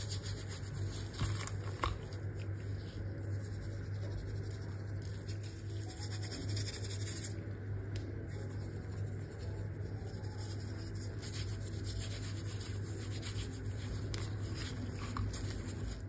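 Hands rubbing and pressing flour onto raw cod fillets in a plastic tray, a continuous soft scratchy rubbing with small ticks, over a steady low hum.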